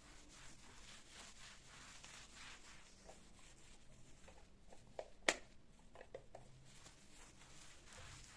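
Faint rustling and rubbing of household handling, with a sharp click about five seconds in and a few small knocks after it.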